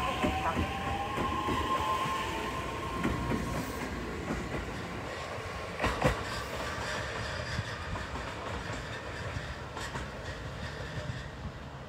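JR East E131-500 series electric train pulling away: a motor whine in the first couple of seconds, then wheels clicking over the rails with a sharp clack about six seconds in. The rumble fades as the train moves off.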